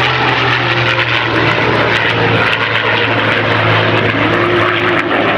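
P-51 Mustang and F-15 Eagle flying past together in formation: a steady propeller-engine drone mixed with rushing jet noise.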